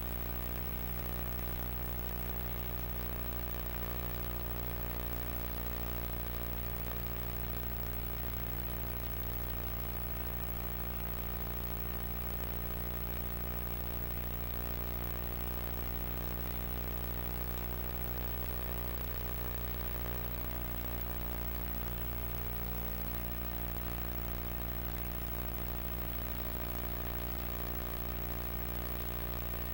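Steady electrical hum with many overtones and a faint hiss, unchanging throughout: background hum on the audio track of a silent signed recording.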